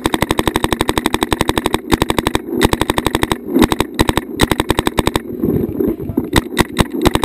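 Paintball marker firing rapid strings of shots, around ten a second, broken by a few short pauses, heard close up from a camera mounted on the marker.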